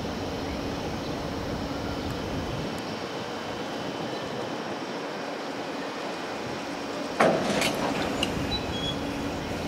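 Train running on the track: a steady running noise with a constant hum, a sudden sharp clank about seven seconds in, then a few clicks and short high squeaks.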